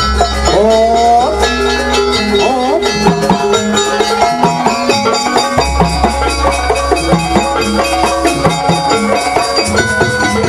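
Jaranan dance music from a Javanese gamelan-style ensemble: quick runs of short metallic notes over drums, with a wavering melody line about half a second to a second and a half in. A deep low tone drops out in the middle and returns.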